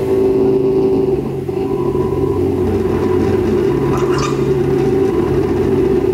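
Electronic soundtrack of an audiovisual installation: a dense, steady low drone over held low tones, with a brief higher hiss about four seconds in.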